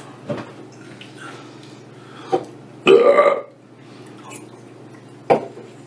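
A man belches once, loudly, for about half a second about three seconds in, with a few short sharp clicks around it.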